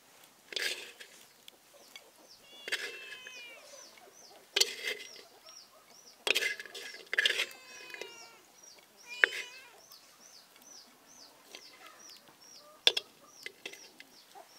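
Chickens calling: a steady run of short high peeping chirps, about two a second, with a few longer, lower fowl calls, broken by several sharp knocks.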